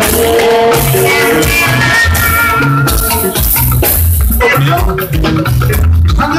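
Live jùjú band music: a heavy, steady bass line under busy percussion, with wavering, sliding melody lines from a pedal steel guitar about one to three seconds in.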